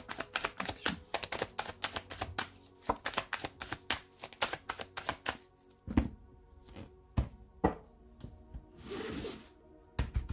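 A deck of tarot cards shuffled by hand: a quick run of crisp card clicks for about five seconds, then a few knocks of the deck on the table and a short sliding hiss about nine seconds in as the cards are spread out across the cloth. Soft background music underneath.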